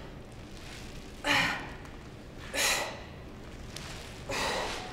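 A woman breathing hard with exertion during a sandbag triceps exercise: three short, sharp breaths, about a second and a half apart.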